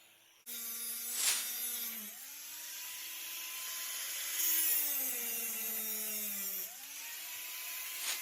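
Electric power tool motor starting about half a second in and running, its pitch sagging and recovering twice as it works under load.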